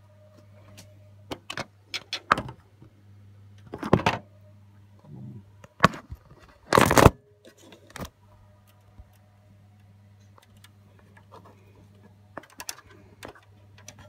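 Clicks, knocks and scrapes of a second-CPU riser board being handled and lined up against the HP Z620 workstation's chassis, with louder knocks about four and seven seconds in.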